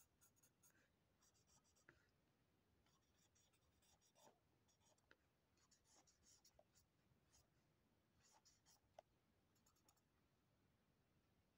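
Faint scratching of a felt-tip marker drawing on paper, in short bursts of quick strokes.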